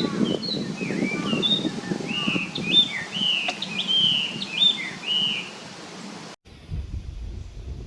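A songbird singing a run of loud, slurred whistled phrases, over a low rumble of wind on the microphone. The song stops, and after a sudden cut about six and a half seconds in only wind noise is left.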